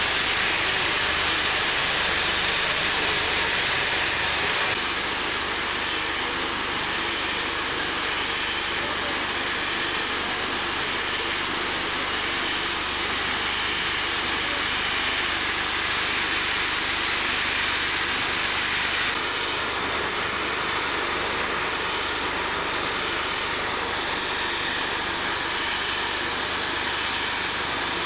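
Steady industrial machinery noise inside a ferroalloy plant: an even, loud rush with no clear rhythm or pitch. Its tone shifts slightly twice, about five seconds in and again about two-thirds of the way through.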